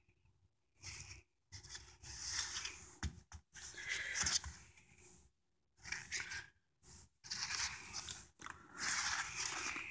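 Rustling and scraping from gloved hands handling a railroad spike and its plastic bag, in a series of bursts with short gaps.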